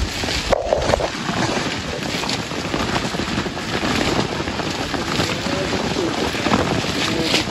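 Coffee branches and leaves rustling as a picker strips ripe cherries by hand, with scattered small clicks and pattering, over wind noise on the microphone.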